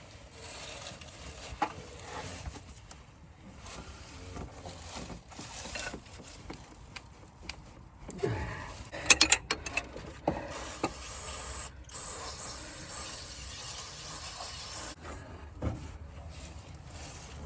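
Hand-tool work on a stuck part: irregular scraping and rubbing, with a quick run of sharp metallic clinks about nine seconds in.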